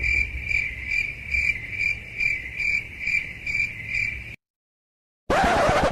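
Cricket-chirp sound effect: a steady high chirp repeating about twice a second, cut off abruptly about four seconds in. A short noisy burst follows near the end.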